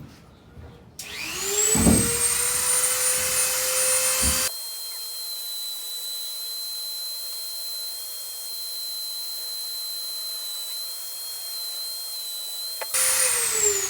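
Dremel rotary tool with a cone sanding bit, enlarging the inside of a deer-antler ring. It spins up to a steady high whine about a second in, turns thinner and quieter about four and a half seconds in, and winds down with a falling pitch near the end.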